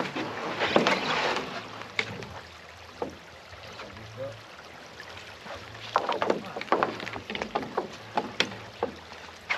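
Scattered clicks and knocks with some splashing from a rowing shell and its sculling oars shifting in the oarlocks and water as the rower settles in at the shore, with a dense run of them about six seconds in.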